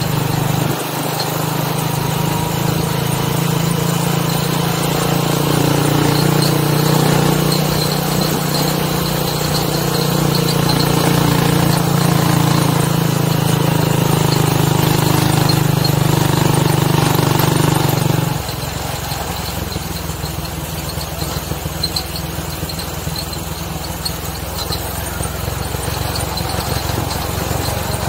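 Motorcycle engine of a moving tricycle (motorcycle with sidecar) running steadily under way, with a steady low hum; about eighteen seconds in the note changes suddenly and the sound gets somewhat quieter.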